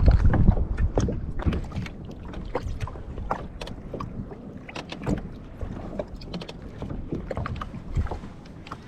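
Scattered small knocks, clicks and water sounds of gear being handled aboard a fishing kayak, with wind buffeting the microphone during the first second.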